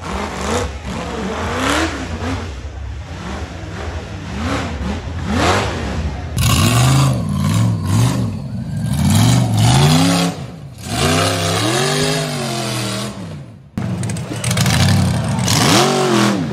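Rock bouncer buggy engines revving hard under load on a steep rock climb, the pitch climbing and falling again and again in short bursts. The sound changes abruptly twice, about six and fourteen seconds in.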